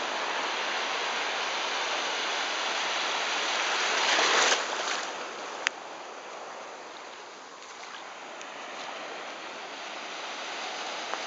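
Ocean surf on a sandy beach: a steady wash of waves, with one wave breaking loudest about four seconds in and falling away quickly into a quieter wash that builds again near the end. A single short click comes just before six seconds.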